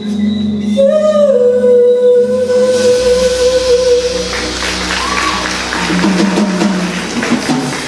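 A female singer holds one long note over a live band of keyboards, bass and drums. From about three seconds in, a dense wash of audience clapping and cheering rises over the band.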